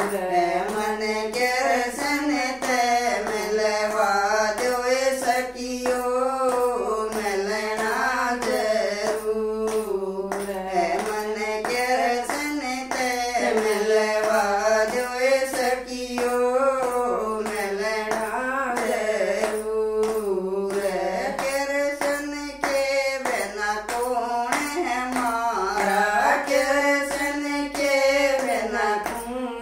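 Two women singing a Haryanvi Krishna bhajan together, clapping their hands to a steady beat.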